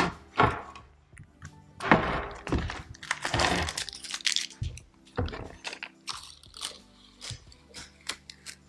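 Clear adhesive tape being peeled up off a crosshatch-scored water-based polyurethane finish on a wood board, in several short pulls. This is a tape adhesion test of the top coat. Background music plays underneath.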